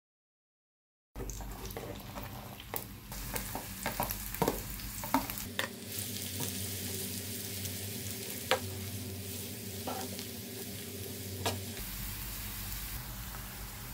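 Chopped onions sizzling in hot oil in a black iron kadai, starting about a second in. A run of sharp clicks and knocks from a spoon against the pan comes as the onions go in and are stirred, with a few single knocks later.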